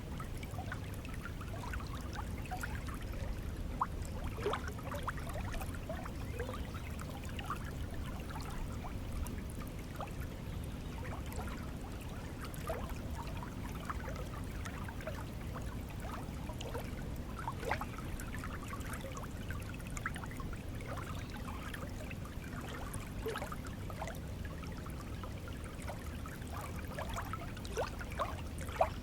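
Shallow stream of water flowing steadily, a low rush with many small trickling plinks and gurgles.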